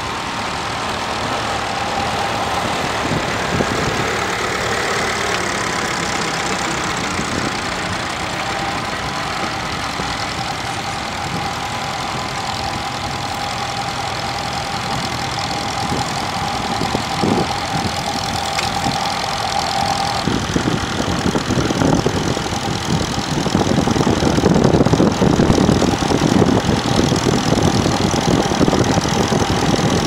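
Vintage grey Ferguson tractor engine running steadily under load as it pulls a plough through the soil, growing louder in the second half as the tractor comes closer.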